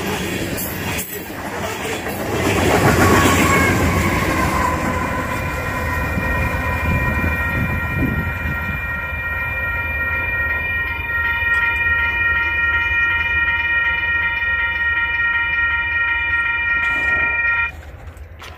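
Freight train of loaded coal hoppers rumbling past. From about four seconds in, a long, steady, high-pitched tone of several pitches is held, then cuts off suddenly just before the end.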